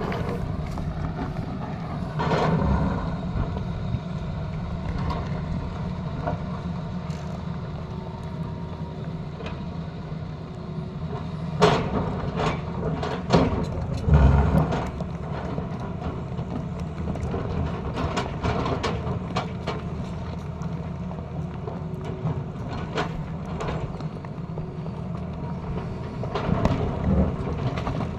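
Tata Hitachi excavator's engine running steadily as it cuts up a road, with occasional sharp knocks and scrapes of the bucket on the road surface; the loudest knocks come in a cluster around the middle.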